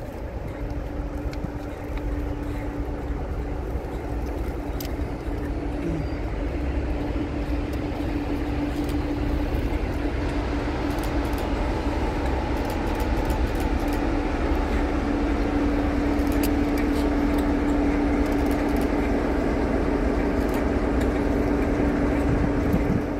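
Class 47 diesel-electric locomotive with its Sulzer engine hauling a train of coaches slowly past, a steady engine drone over a low rumble that grows louder as it draws level, with light clicks of wheels over the rails.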